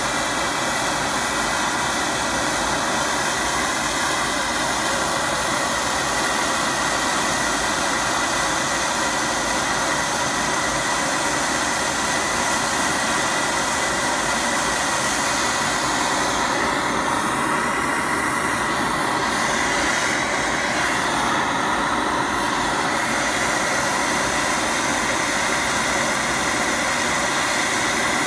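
Handheld propane torch flame burning with a steady, unbroken roar as it heats a copper bus-bar soldering tool hose-clamped to its tip.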